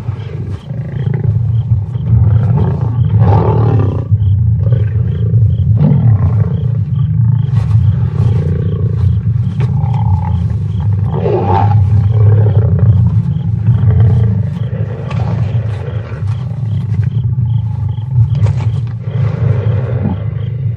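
Lions growling at a kill: a continuous deep, rumbling growl with louder outbursts every few seconds.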